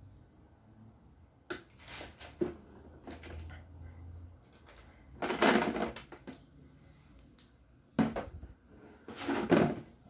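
Plastic footbath basin and its removable plastic attachment being handled: a string of hollow plastic knocks and clatters, with the loudest bursts about five seconds in and near the end as the basin is shifted around on a wooden floor.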